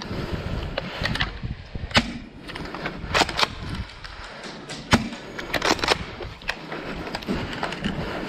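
Airsoft guns firing: irregular sharp cracks, single shots with a few in quick succession, over steady low background noise.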